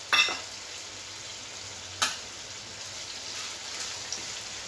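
Onion, tomato and capsicum masala frying in oil in a pan, a steady sizzle, with two sharp knocks about two seconds apart that are the loudest sounds.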